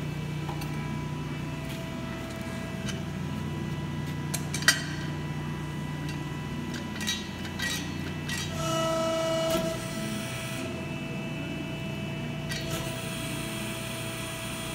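Hydraulic system of a Cincinnati CB II 175-ton press brake running with a steady low hum. A sharp click comes about four and a half seconds in, and about halfway through a louder whine rises over the hum for about a second.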